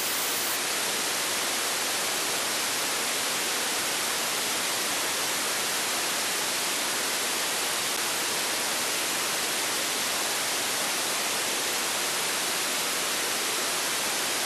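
Open-squelch FM receiver hiss from an SDR# software radio tuned to a 10 m FM repeater channel near 29.52 MHz with no carrier present. It is a steady rush of white noise, strongest in the high pitches, showing that the repeater is off the air between transmissions.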